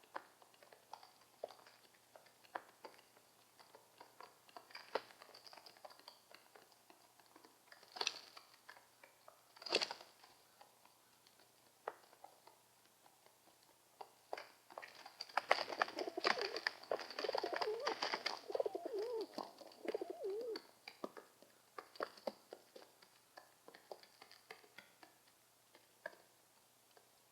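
Pigeons and doves cooing, with a warbling run of coos in the middle stretch, over many sharp clicks and taps scattered throughout.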